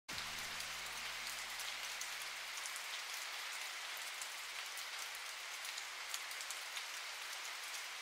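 Steady hiss of falling water with a fine patter of droplets. A faint low hum stops about two seconds in.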